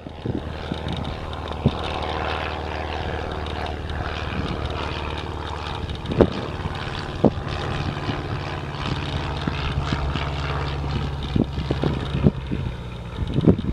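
Single-engine high-wing training plane's piston engine and propeller droning steadily as it climbs out at full power after a touch-and-go. A few brief thumps on the microphone cut in now and then.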